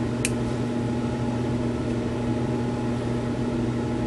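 Steady low mechanical hum of a running room appliance or fan, with one light click about a quarter second in.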